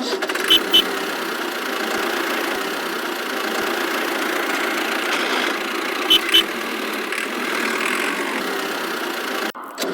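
Miniature bulldozer's motor running steadily, with two short double beeps, one about half a second in and one about six seconds in. The running sound cuts off briefly just before the end.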